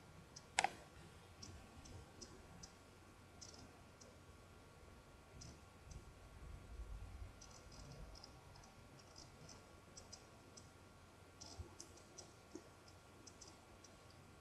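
Near silence with faint, scattered small clicks of the lips and a lip liner pencil being drawn along them, one sharper click about half a second in.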